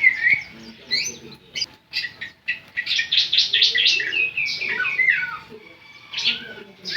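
Bar-winged prinia (ciblek) singing in bursts of sharp, high chirps, with a fast run of rapidly repeated notes about three seconds in and sliding, falling notes shortly after.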